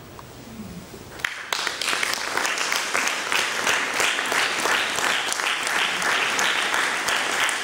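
Audience applause that breaks out about a second and a half in, after a short quiet, and goes on steadily as many hands clapping.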